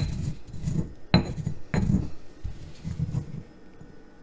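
Granite pestle grinding and knocking inside a granite mortar, crushing dried rosemary and other dried herbs. A few sharp clinks come in the first two seconds between rounds of gritty grinding, and the grinding grows quieter after about three seconds.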